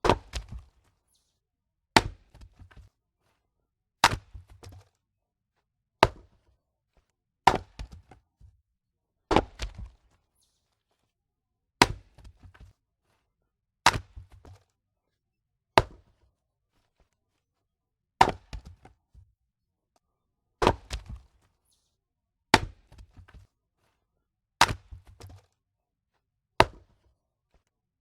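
Axe splitting firewood logs: about fourteen sharp chops, roughly one every two seconds, each followed by a brief scatter of smaller knocks.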